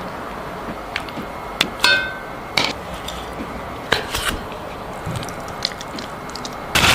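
Kitchenware being handled: scattered clicks and knocks, with one ringing clink of glass or ceramic about two seconds in, over a steady hiss. A loud rushing hiss starts just before the end.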